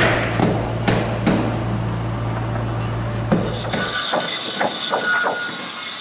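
Hammer blows on wooden formwork: several strikes about half a second apart, a lone strike a little past three seconds, then a quick run of three or four lighter strikes near the end. A steady low machine hum underneath stops abruptly about four seconds in.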